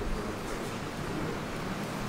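Steady background noise, an even hiss and low rumble with no distinct events: room tone.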